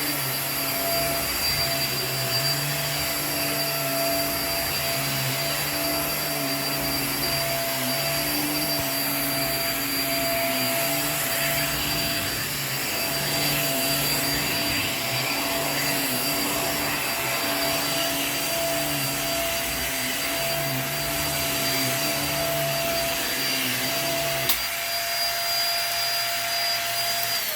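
Hoover React QuickLift upright vacuum running on carpet: a steady high motor whine over a low hum that rises and falls as it is pushed back and forth. About 24 seconds in there is a click and the low hum stops, and at the very end the motor is switched off and its whine starts to drop.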